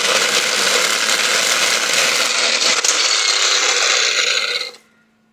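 A homemade noisemaker rattling against the spokes of a spinning bicycle wheel: a loud, fast, continuous clatter made to imitate a racing motorbike engine. It cuts off abruptly near the end.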